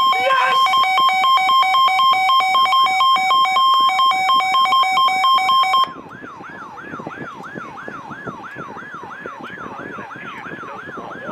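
Emergency Alert System alert tones. A loud, steady two-tone alarm, opening with a short rising chirp, cuts off suddenly after about six seconds. A quieter warbling tone then takes over, falling in pitch over and over, about two and a half sweeps a second.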